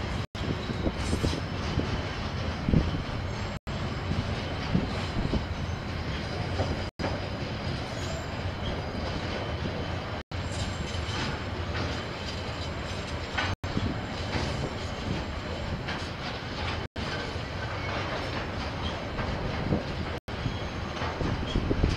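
Freight train wagons rolling steadily past, a continuous noise of wheels on rail, picked up by a security camera microphone. The audio drops out for an instant about every three seconds.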